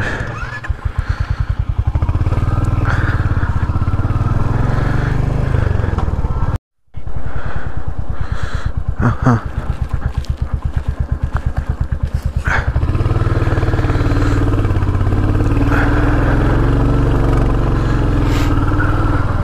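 Royal Enfield Hunter 350's single-cylinder engine running steadily under way, its firing strokes making an even pulse. There is a brief break in the sound about seven seconds in, and the engine note changes a little after twelve seconds.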